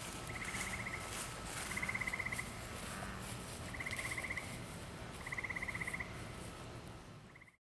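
A night-calling animal's short pulsed trill, repeated four times about every one and a half to two seconds, each trill under a second long, with a fifth starting just as the sound cuts off.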